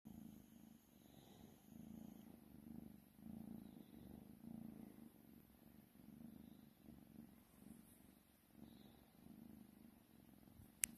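White kitten purring softly while being stroked, the purr swelling and fading about once a second. A single sharp click near the end.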